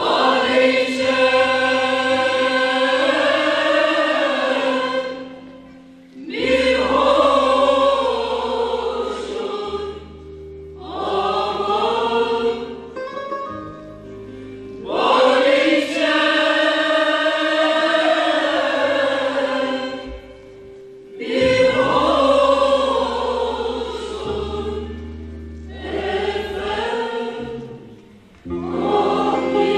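Mixed choir of men and women singing a Turkish folk song, in phrases a few seconds long with short breaks for breath between them.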